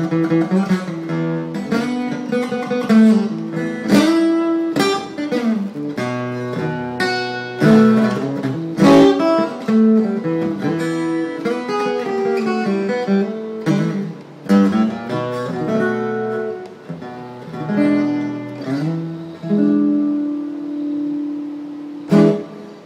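Acoustic guitar playing alone: picked single notes mixed with struck chords that ring on between them, ending on a last strummed chord near the end.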